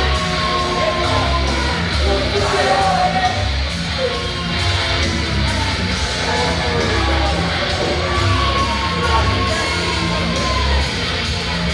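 Music with a singer over a steady heavy beat, playing loudly.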